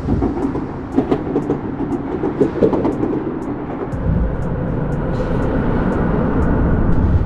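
Low rumble of vehicle traffic with many scattered sharp ticks and clanks; about four seconds in, the rumble deepens.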